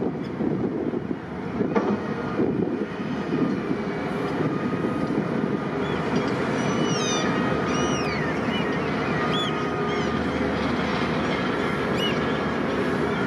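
Harbour tug's diesel engine running with a steady low rumble as its propeller churns the water. A few short high chirps come in over it in the second half.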